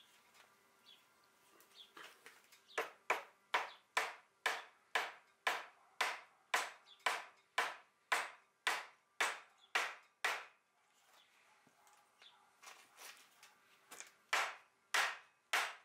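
Mallet tapping a wooden table frame piece down onto freshly glued dowels in the leg tops, driving the joint home. Short sharp knocks at about two a second for some seven seconds, then after a pause three more near the end.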